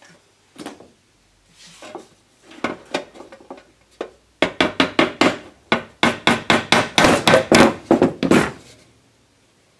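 Hammer tapping a metal ashtray down into a hole in a sheet-aluminium box. A few scattered knocks come first, then from about four seconds in a quick run of ringing blows, roughly four or five a second, which stops about a second before the end.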